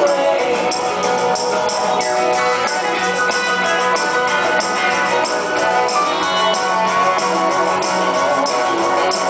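Music: a song with many instruments playing together over a steady beat.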